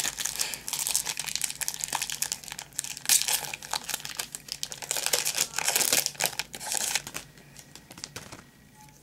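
Wrapper of an Upper Deck basketball card pack crinkling and tearing as it is opened by hand, a dense crackle that dies down about seven seconds in.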